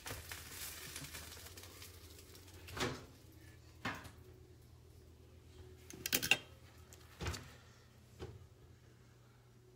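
Kitchen handling noises: a few separate knocks and clatters of things being moved, opened and set down, the loudest a quick cluster about six seconds in, over a low steady hum.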